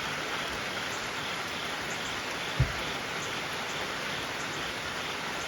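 Steady rain falling, an even hiss, with one dull low thump about two and a half seconds in.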